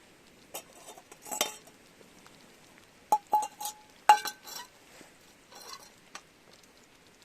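Metal utensils clattering and clinking against cookware: a short rattle, then several sharp clinks that ring briefly, the loudest about four seconds in, followed by a few softer knocks.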